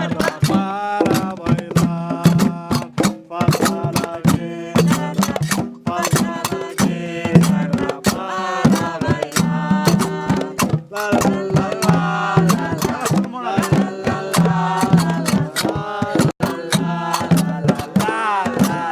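Berber folk music: hand drums and percussion keeping a rapid, even beat under voices singing.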